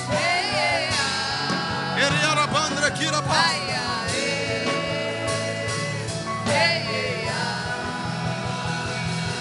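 Worship music: long held keyboard chords over a steady beat, with a voice singing long wavering notes that come and go, no clear words.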